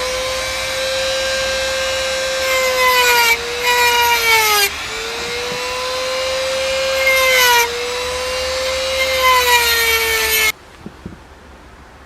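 Vintage Metabo electric grinder running with a steady high whine. Twice its pitch sags under load while a harsh grinding rasp joins it, then recovers. The motor cuts off suddenly near the end.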